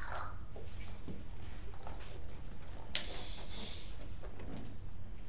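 Room noise from a waiting audience and young string players: faint shuffling and rustling over a steady low hum, with one sharp click about three seconds in, followed by a short hiss.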